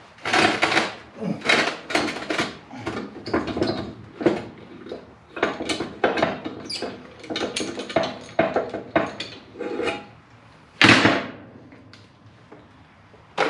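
Hand tools working on steel: a rapid, irregular run of scraping and knocking strokes for about ten seconds, then one louder, sharper knock about eleven seconds in.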